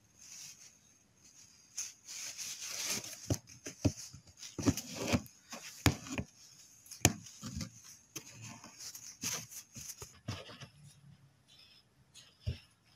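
Irregular scratching, rustling and small clicks of a needle and embroidery thread being pulled through cloth, with fingers handling the fabric, as cast-on stitches are worked.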